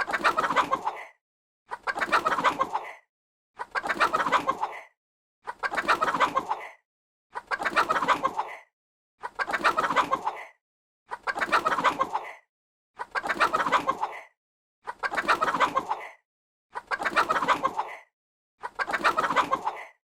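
Chicken clucking in short bursts of quick clucks, each about a second long, repeated about every two seconds with dead silence between, like one sound-effect clip played over and over.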